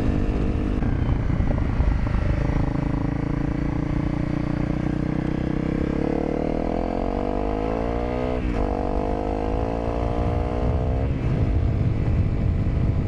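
Honda CRF250L's single-cylinder four-stroke engine under hard acceleration: the revs climb through a gear, dip sharply at an upshift about eight and a half seconds in, and climb again. The throttle comes off around eleven seconds, leaving a broad road rumble.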